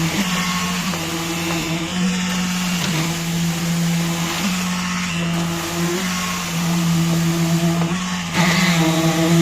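Concrete pump running steadily while pumping concrete: a loud engine hum whose note breaks and shifts every second or so as the pump cycles, getting louder near the end.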